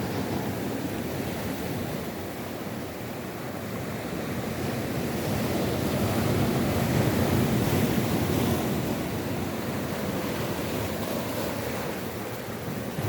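South Atlantic surf breaking and washing ashore, swelling to its loudest about halfway through and then easing off, with wind on the microphone.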